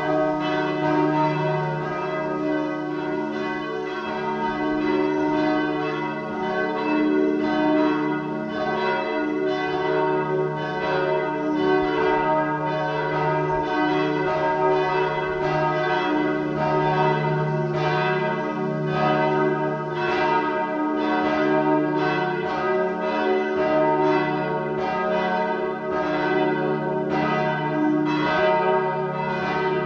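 Several church bells ringing together in a full peal, their strikes overlapping in a continuous, uneven clang over the steady hum of the deeper bells.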